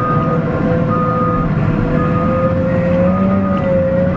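Cat 950M wheel loader heard from inside its cab: the diesel engine running steadily with a whine that wavers slightly in pitch, and a reversing alarm beeping four times, about a second apart, as the machine backs up.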